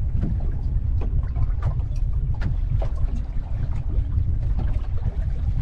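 Boat running over open water: a steady low rumble of engine and wind buffeting the microphone, with frequent short knocks and splashes of the hull on the water.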